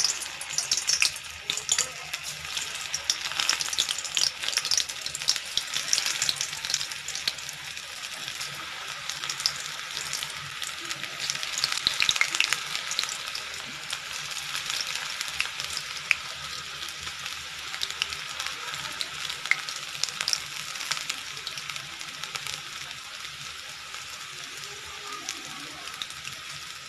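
Methi (fenugreek) bhaji batter deep-frying in hot oil in a wok: a dense sizzle with many sharp pops and crackles. It is busier and louder in the first half as fresh batter goes in, and settles to a steadier, quieter sizzle toward the end.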